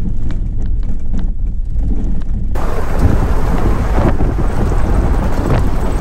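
Truck driving along a rough, muddy off-road trail: a heavy low rumble with scattered knocks and jolts, and wind buffeting the microphone. About two and a half seconds in, the sound turns abruptly brighter and hissier.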